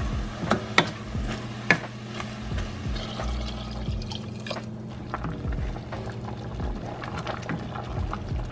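Wooden spatula knocking and scraping against a stainless steel pot of onions and mushrooms a few times, then clear water poured from a jug into the pot, a splashing pour of about two seconds, followed by stirring.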